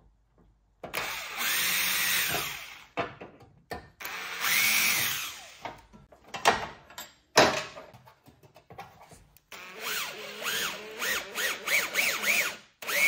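Cordless drill boring holes into a steel bracket and radiator support panel. It runs in two longer bursts with the motor whine rising and falling as the trigger is squeezed, then a few knocks, then a string of short trigger pulses near the end.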